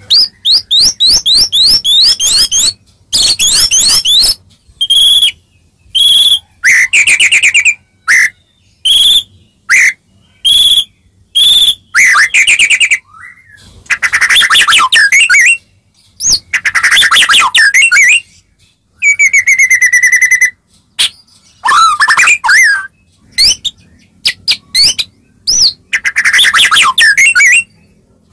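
White-rumped shama (murai batu) singing loudly: varied song phrases of whistles, fast trills and chattering notes, each a second or two long with short pauses between.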